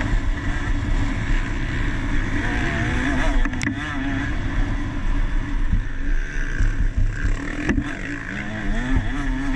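Two-stroke KTM SX 150 motocross engine revving up and down under race riding, over a steady low rumble, with two sharp knocks about four seconds apart.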